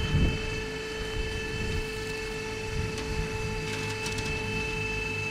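Refuelling pump running with a steady, constant whining hum while the fuel hose is brought up to the aircraft's wing tank, over an uneven low rumble.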